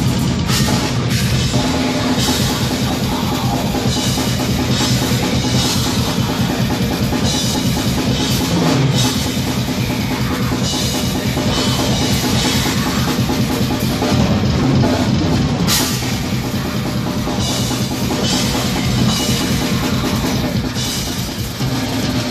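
Live heavy metal band playing loud and without a break, the drum kit's cymbals and bass drum to the fore. Picked up by a phone's microphone at the side of the stage, in rough quality.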